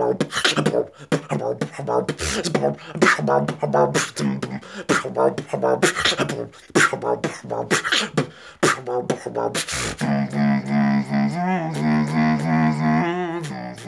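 Freestyle beatboxing: a fast run of mouth-made kicks, snares and clicks, switching about ten seconds in to a held, pitched hum that wobbles into a trill near the end.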